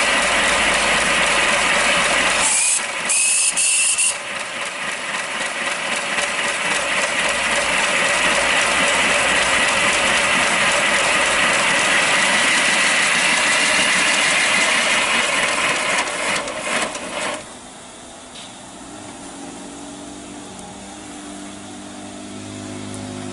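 Live steam hissing steadily from a 5-inch gauge BR Standard Class 4 model steam locomotive in steam, with faint steady whistling tones in the hiss. The sound briefly changes about three seconds in, and near the end it drops away to a much quieter hiss.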